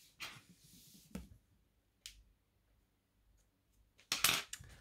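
Paper card being handled: a few faint soft clicks and rustles, then a louder burst of paper rustling about four seconds in as the card is moved.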